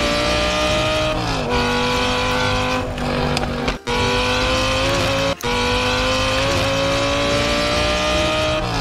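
Sports-car engine sound accelerating: the pitch climbs slowly, falls back about a second in as if shifting gear, climbs again and falls once more near the end, with two very brief breaks.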